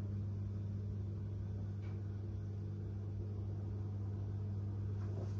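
A steady low electrical hum with a faint hiss underneath, unchanging throughout.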